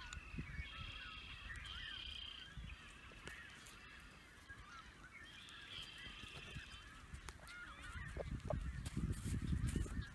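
Birds calling in the background: constant chirping with a few drawn-out higher calls near the start and again about six seconds in. Wind rumbles on the microphone, growing stronger near the end.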